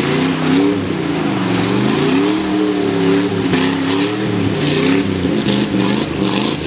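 Pickup truck engine revving up and down repeatedly under load while its wheels spin through deep mud.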